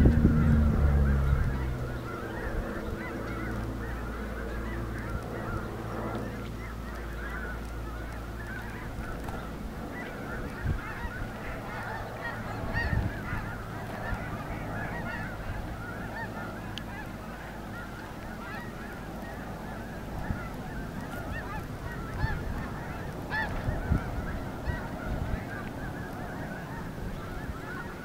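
A large flock of geese honking, many calls overlapping without pause. Over the first two seconds a loud low hum falls in pitch and fades away.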